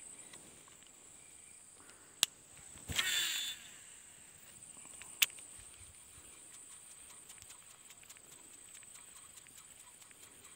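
Fishing rod and reel cast: a sharp click, then about half a second of the spool spinning out with a falling whir, another sharp click a couple of seconds later as the reel is closed, then faint ticking as line is wound in.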